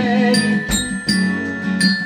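Instrumental music: glockenspiel bells struck with mallets, a quick run of bright ringing notes over sustained low backing notes, with a low thump about two-thirds of a second in.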